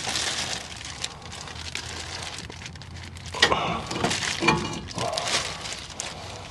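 Plastic bag crinkling and rustling as it is handled around a new brake rotor, with a few louder knocks from the rotor being lifted off the wheel hub.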